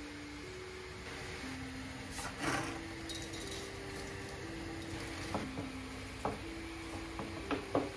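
Dishes and glassware clinking: a short clatter about two seconds in, then several light, separate clinks, over a quiet background melody of held notes.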